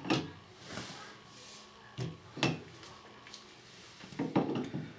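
Short clunks and knocks of parts being handled as a replacement Delta shower valve cartridge is lined up and fitted into the valve body: one at the start, a pair about two seconds in, and a quick cluster near the end.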